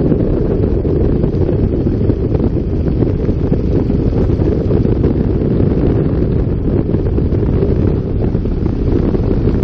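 Wind buffeting the microphone: a loud, steady low rumble with no pauses.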